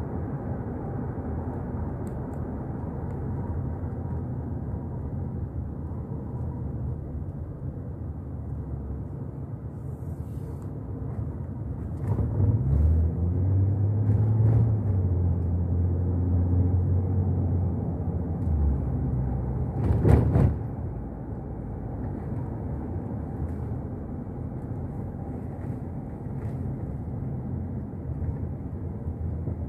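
Steady low rumble of road and engine noise inside a moving car. About twelve seconds in, a deep engine drone rises in pitch and holds for about six seconds, and a sharp knock about twenty seconds in is the loudest moment.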